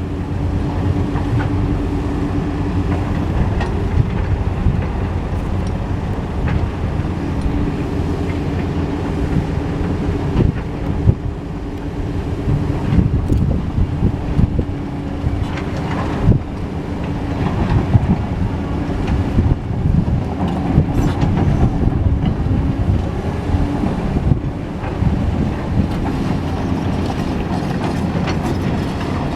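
Caterpillar excavator's diesel engine running steadily under load, with a low hum and a steady engine tone, and scattered metallic clanks and knocks throughout.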